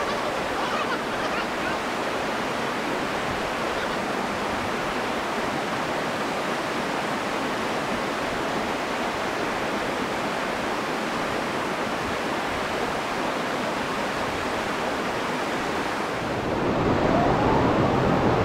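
Steady rushing of water pouring over rocks into a creek pool. It grows louder and deeper about two seconds before the end.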